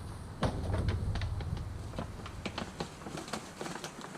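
A run of irregular light taps and clicks over a low steady hum: hands handling and pressing DYNAMAT sound-deadening sheets down on the truck's sheet-metal floor.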